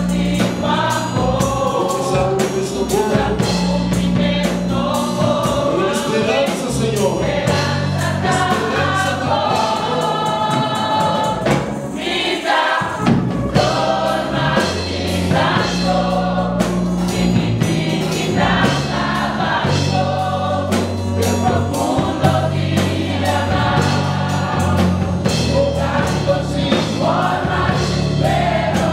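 A choir singing a gospel hymn over a steady low bass line; the bass drops out briefly about twelve seconds in.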